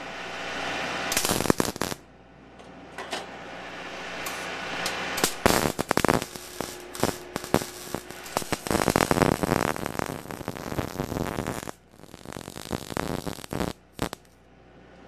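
MIG welding arc crackling on steel as a strap cap is welded into the end of square steel tubing. It goes in several bursts with short pauses, the longest lasting about six seconds in the middle.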